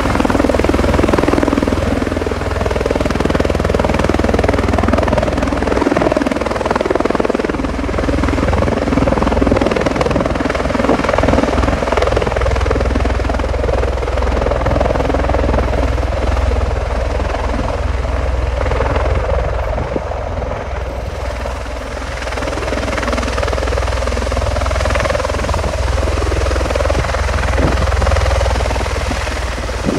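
U.S. Air Force CV-22 Osprey tiltrotor hovering in helicopter mode, descending and touching down, its two large proprotors and turboshaft engines making a loud, steady rotor thrum that eases slightly for a moment after touchdown.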